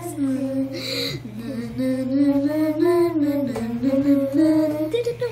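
A voice singing a wordless tune in one long line that glides up and down in pitch, hardly breaking, until it stops just before the end.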